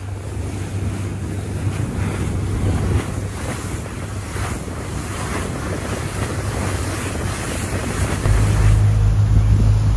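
Charter fishing boat's engine droning steadily under way, with wind buffeting the microphone and the rush of sea water. The low rumble grows louder about eight seconds in.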